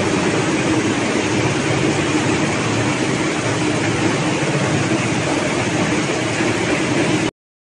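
Cotton ginning machinery running: a loud, steady mechanical noise from the gin stands. It cuts off suddenly near the end.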